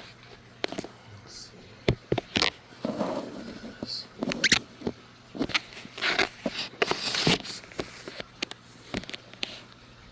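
Irregular clicks, knocks and rustling from a phone being handled and moved about while filming, over a faint steady low hum.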